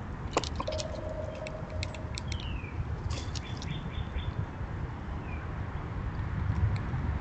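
Wild birds calling in the background: two clusters of short high chirps and clicks, a held whistle lasting about a second and a half, and a brief falling note, over a steady low rumble.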